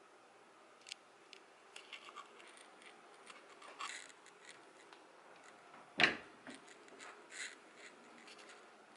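Wooden sliding closet door being handled and slid open: scattered small clicks and scraping, with one sharp knock about six seconds in, the loudest sound.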